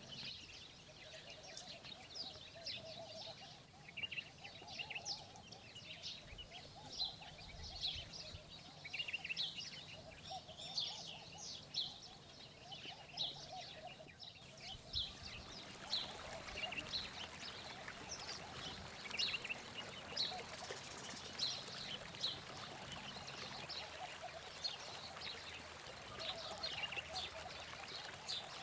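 Many small birds chirping in quick short calls, over a lower repeated call. About halfway through, a steady rush of running water joins in.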